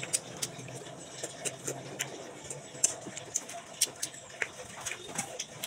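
Close-up eating sounds from someone chewing and sucking the pulp of santol (cotton fruit): wet mouth smacks and clicks, a few a second.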